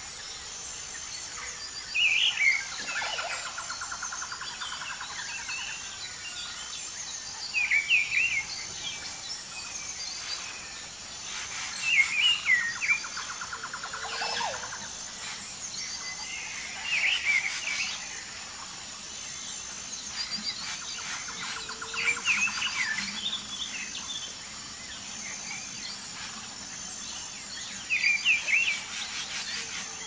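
Songbirds calling in short bursts of chirps about every five seconds, over a steady high insect chirring and an occasional rapid trill.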